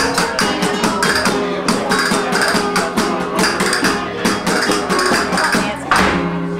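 Live flamenco music: acoustic flamenco guitars playing under sharp percussive clicks in a quick, steady rhythm, several a second. About six seconds in, a strong strummed chord rings out.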